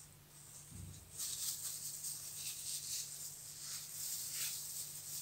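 A knife cutting and scraping through a slice of melon held in plastic-gloved hands: an uneven hissy, rustling scrape in repeated runs, starting about a second in, over a faint steady hum.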